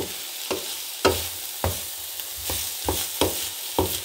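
Green beans, carrot and shell-on shrimp sizzling in oil in a pan, stirred with a utensil that scrapes and knocks against the pan about twice a second over a steady sizzle.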